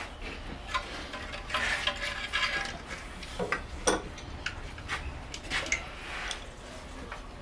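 Metal tools and engine parts clinking and clicking under hand work in a car's engine bay, with a denser rattling scrape around two seconds in and sharp clicks a little later.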